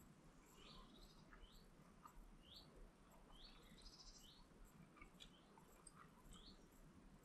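Near silence, with faint short falling bird chirps repeating about once a second in the background.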